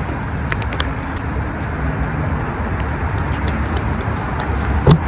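Steady road traffic noise from passing cars, with a few light clicks about half a second in and a short, louder sound with a brief rising pitch near the end.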